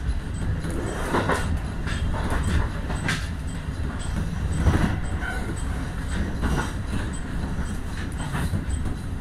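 Electric train running at speed, heard from inside at the front of the car: a steady rumble of wheels on rail, with several irregular knocks from the wheels over the track.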